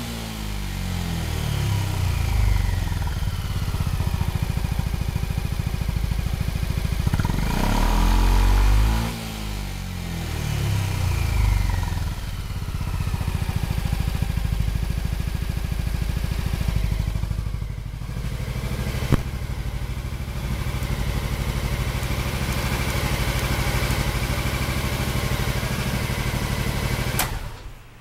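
Honda Faze 250 scooter's single-cylinder four-stroke engine running. Its revs fall back from a blip, rise and fall again once more about a third of the way in, then settle to a steady idle. It stops abruptly near the end.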